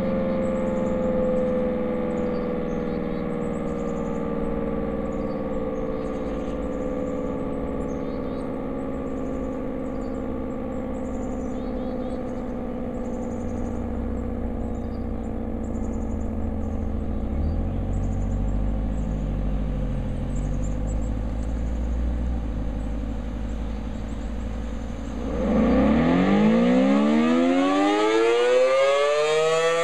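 Federal Signal SD-10 electromechanical outdoor warning siren sounding for a tornado drill test. Its tone falls slowly as it winds down, then about 25 seconds in it winds up again, the pitch climbing steeply and louder, and it settles into a steady wail near the end.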